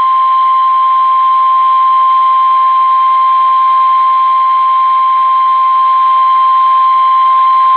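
NOAA Weather Radio 1050 Hz warning alarm tone played through a weather radio receiver: one loud, steady, single-pitched tone over constant radio hiss, sounded as the weekly test of the warning alarm.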